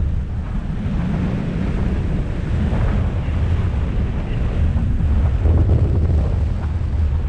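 Airflow over the camera microphone of a paraglider in flight: a steady, deep, buffeting wind rumble.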